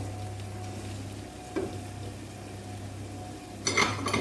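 Vegetables frying in a pan with a low sizzle over a steady hum, while a utensil stirs them: a short knock about a second and a half in, and a louder clatter against the pan near the end.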